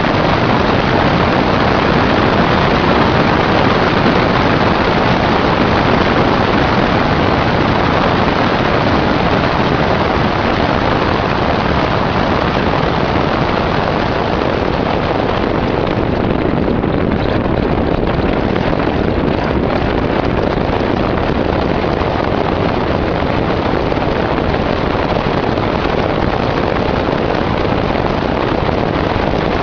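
Steady, loud wind rush over a microphone mounted on the outside of a Wartburg 353 driving along a road, mixed with tyre and road noise from the front wheel beside it.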